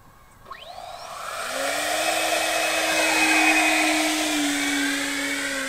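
Twin electric ducted-fan motors of an RC Boeing 737 model spooling up with a brief rising whine, then running as a steady rushing whine that swells as the model is launched and slowly fades as it flies away.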